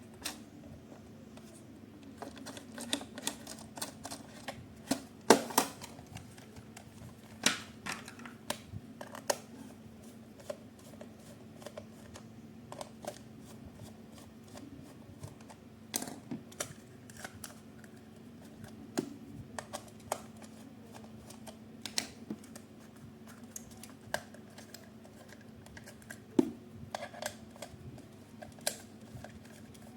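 Irregular sharp clicks and taps, a few seconds apart, over a faint steady hum.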